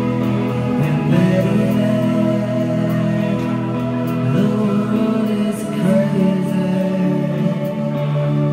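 Live rock band playing: electric guitars and drums, with a male singer's voice coming in about a second in.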